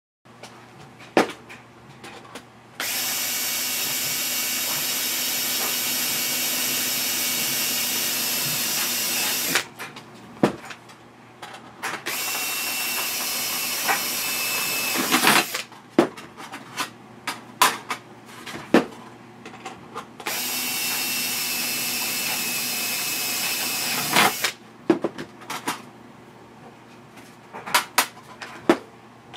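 DeWalt cordless drill drilling into a metal plate in three runs of several seconds each, with sharp clicks and clinks of metal parts being handled between the runs.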